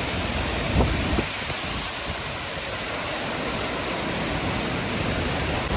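Steady rush of Burgess Falls' waterfall, an even hiss of falling water.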